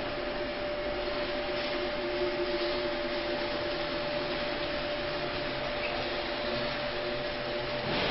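Steady hiss with a constant low hum: background room or machine noise, with no clear sound of the work itself.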